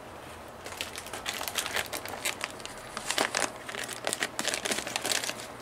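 Clear plastic parts bag crinkling and rustling in irregular bursts as it is handled and cut open with scissors, starting about half a second in.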